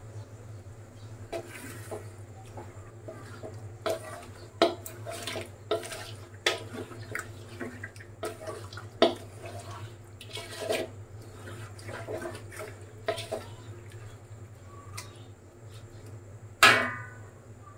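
A metal spoon or spatula clanking and scraping against a cooking pot in irregular knocks, with one loud ringing clank near the end.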